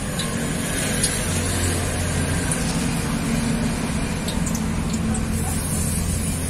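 Steady road traffic noise, with a vehicle engine's low hum swelling through the middle. A few faint light clicks sound over it.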